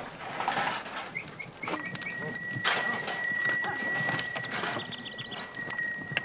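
A herd of goats crowding out of a pen: hooves knocking and trampling on dirt, with short bleats. From about two seconds in, a steady high ringing tone runs under the trampling.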